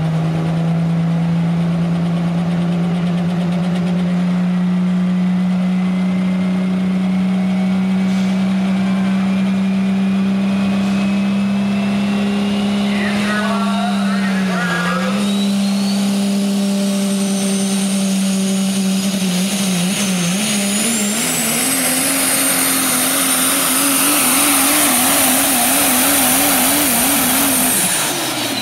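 Turbocharged diesel engine of a Dodge Ram pulling truck running hard under load. A turbo whine climbs steadily in pitch as it spools up. Over the last several seconds the engine note wavers quickly up and down, then the sound cuts off suddenly.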